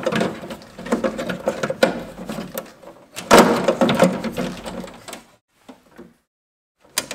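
Handling noise as a small electronic unit and its cables are pushed into place in the bottom of an electrical cabinet: irregular rustling, scraping and clicking, loudest about three seconds in, then a single sharp click near the end.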